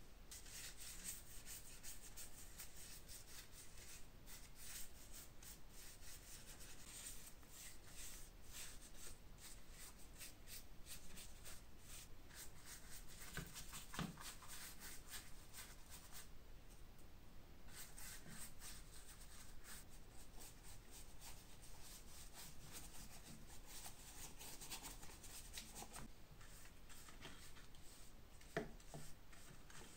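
Faint rubbing and rustling of stiff old leather bellows pieces being handled and flexed in gloved hands, with a couple of small knocks. Near the end, a bristle brush strokes liquid onto a small leather piece.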